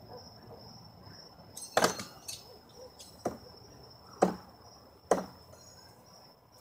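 Throwing knives striking a wooden target: four sharp thuds about a second apart, the first a doubled hit, as the knives are thrown in quick succession with a half spin. A steady high trill of crickets runs underneath.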